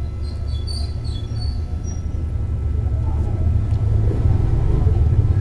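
Low rumble of a motor vehicle engine running, growing steadily louder. A few faint high chirps sound in the first two seconds.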